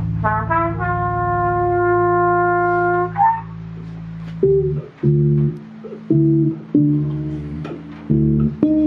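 A trumpet scoops up into a long held note that stops about three seconds in, over a low sustained bass tone. The electric bass guitar then plays a phrase of short, separate plucked notes with gaps between them.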